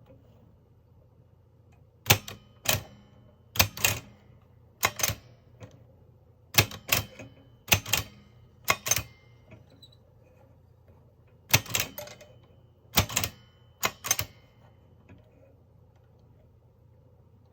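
Mignon No. 4 index typewriter printing letters one at a time: about a dozen sharp clacks, many as a quick double, in uneven spacing with a pause of about two seconds midway.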